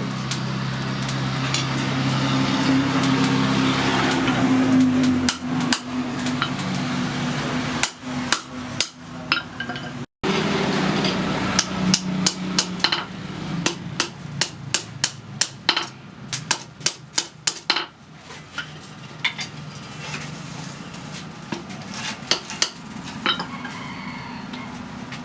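Hammer striking hot steel on an anvil, forging blacksmith's tongs, in irregular runs of about two to three blows a second. A steady low machine hum runs underneath.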